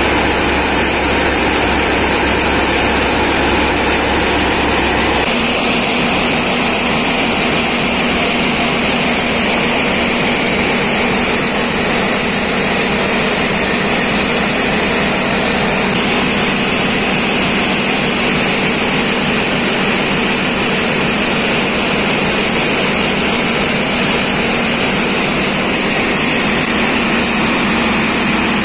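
Tractor-driven paddy thresher running under load: a loud, steady mechanical din of the threshing drum and cleaning fans, mixed with the tractor's diesel engine working. The low end of the sound changes slightly about five seconds in.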